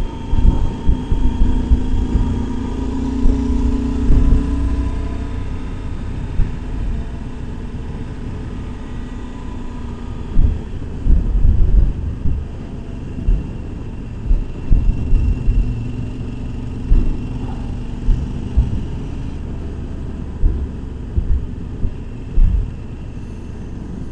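Motorcycle engine running at road speed under heavy wind buffeting on the microphone. The wind comes in irregular gusts over a steady low rumble.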